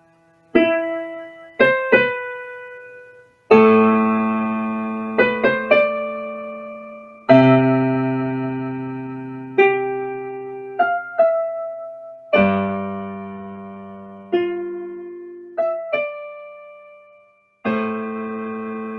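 Slow, sparse solo piano music: single notes and full chords struck a few seconds apart, each left to ring and fade.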